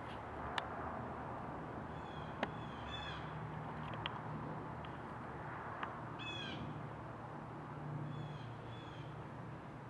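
Blue jay nestlings' harsh begging calls, in short bursts several times, with a few sharp clicks and a steady low hum underneath.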